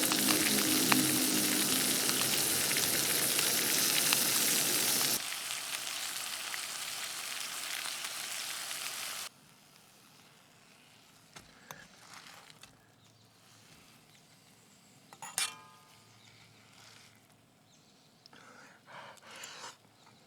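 Food frying in a pan, a loud steady sizzle. It drops sharply to a quieter sizzle about five seconds in, then cuts off about nine seconds in, leaving faint outdoor quiet with a few short faint sounds.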